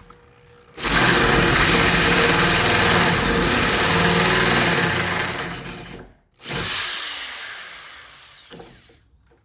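Power drill with a 1-inch paddle bit boring into the wooden door edge to widen the latch hole: one steady run of about five seconds, a brief stop, then a second shorter run that winds down as the drill slows.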